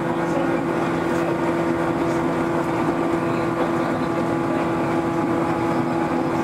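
Ainokaze Toyama Railway 413 series electric train heard from on board: a steady hum with a constant low tone over even rolling noise.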